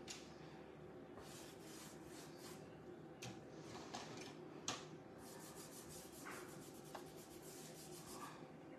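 Faint scratchy rubbing of pastel on Pastelmat paper, in many short repeated strokes, with a sharper tick about three seconds in and a louder one near five.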